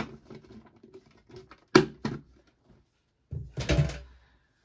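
Handling noises from a trading-card tin and its wrapped packs on a table: a sharp knock about two seconds in, then a duller thud with a rustle near the end.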